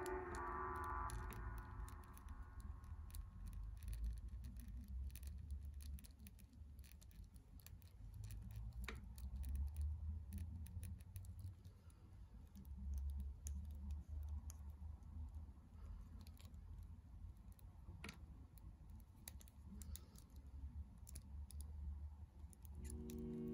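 Irregular small clicks and scrapes of a Bandai S.H.Figuarts plastic action figure's joints being bent and posed by hand, over a low handling rumble. Background music fades out about a second in and comes back near the end.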